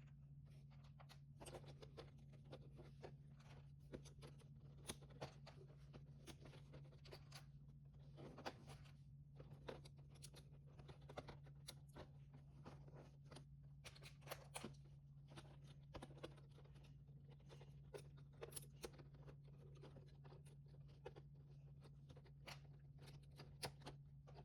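Faint, irregular clicks and rustles of plastic Lego bricks being handled and pressed together, over a steady low hum.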